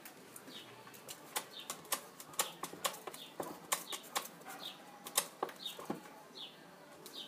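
A bulldog puppy's claws scrabbling and tapping on a door sill as it climbs, loudest in the middle seconds. A bird gives a short, high, falling chirp about once a second throughout.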